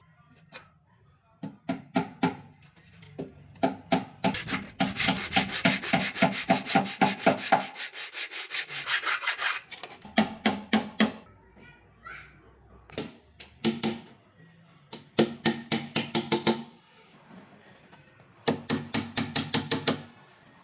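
Several bursts of quick back-and-forth hand-saw strokes cutting a mitre through a wooden beading strip, the longest run lasting several seconds. Near the end come rapid light taps of a small ball-peen hammer fixing the beading in place.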